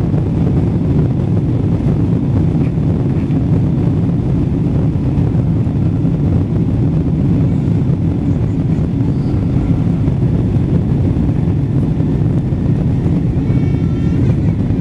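Steady low rumble inside the cabin of a Boeing 777-200 rolling on the ground, engine and wheel noise blended together. A faint high whine comes in near the end.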